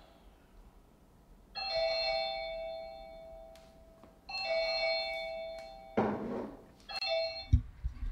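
Doorbell chime ringing three times, about two and a half seconds apart; each ring is a bright multi-note tone that dies away, and the third is cut off short. A brief rush of noise and a few low thumps come near the end.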